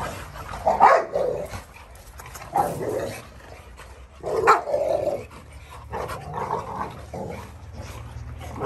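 American bully dogs barking and growling as they play-fight, in short bursts every second or two.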